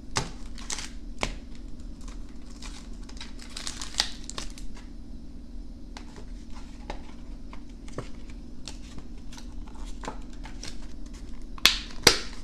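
Plastic-and-cardboard blister packaging being torn open and handled: the clear plastic tray crinkles and the cardboard backing tears, with scattered clicks throughout and two louder crinkles near the end.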